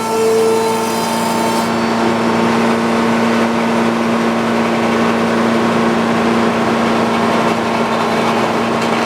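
Old-time circular sawmill held at high RPM: the blade finishes ringing through a cut about a second and a half in, then the engine and freewheeling blade run on with a steady hum.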